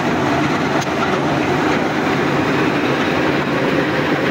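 Borewell drilling rig running: a loud, steady mechanical din.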